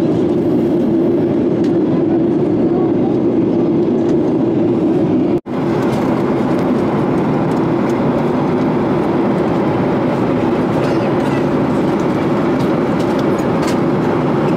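Steady cabin drone of a Boeing 737-800 in cruise, the rush of air and the hum of its CFM56 jet engines heard from inside the cabin. About five seconds in it drops out for an instant at an edit cut, then carries on.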